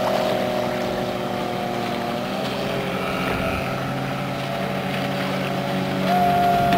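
Outboard speedboat engines running at speed, a steady drone whose pitch shifts slightly as the boats pass. A higher engine note comes in briefly near the end.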